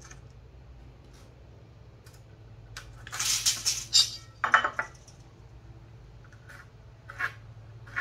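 Light metallic clinks and scrapes from a steel tape measure and pencil as 2x4 boards are measured and marked, with a louder rattle of about a second about three seconds in and a few short clicks later.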